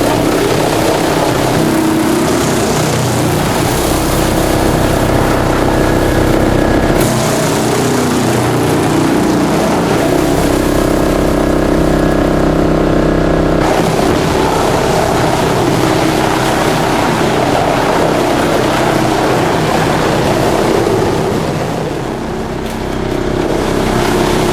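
Front-feed drum wood chipper running with a loud, continuous machine drone over a dense rushing noise. Its hum shifts in pitch about a third of the way in and again about halfway through.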